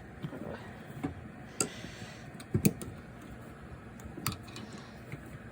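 A few scattered clicks and light knocks of hand tools being handled and taken out of a toolbox.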